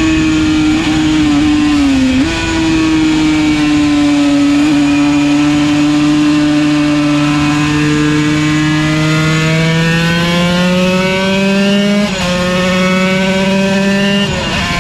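Yamaha TZ125's single-cylinder 125 cc two-stroke race engine running hard at high revs, its note sagging and then climbing slowly. There are brief breaks with jumps in pitch about two seconds in, near twelve seconds and again near the end.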